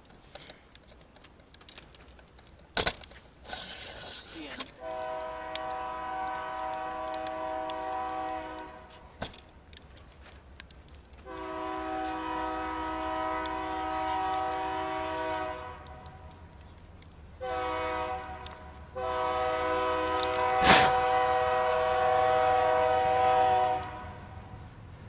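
BNSF freight locomotive's multi-chime air horn sounding the grade-crossing signal: two long blasts, a short one, then a final long one. There is a sharp knock just before the horn starts and a louder one partway through the last blast.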